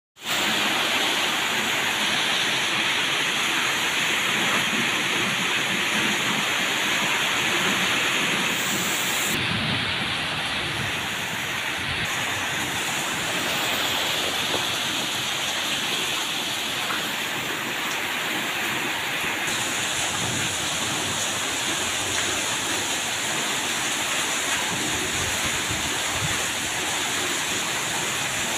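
Heavy tropical rain pouring down in a steady, unbroken rush.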